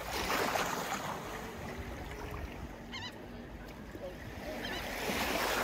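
Shallow seawater sloshing and lapping at the water's edge around feeding sharks, with a brief wavering high call about three seconds in.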